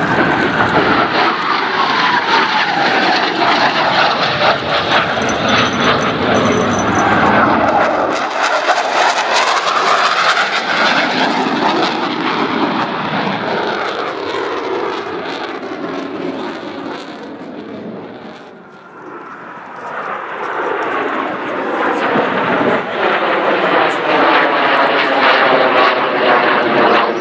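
U.S. Navy Blue Angels F/A-18 Hornet jets flying past. A low-passing jet's engine noise opens loud with a whine that falls steadily in pitch over the first few seconds. The noise then thins to a lull about two-thirds of the way through and builds again as the four-jet formation approaches, with a sweeping, phasing sound.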